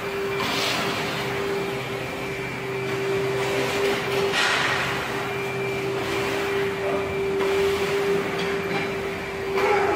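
Steady mechanical hum with one constant tone over a noisy rush, broken by three short hissing bursts about half a second, four seconds and nine and a half seconds in.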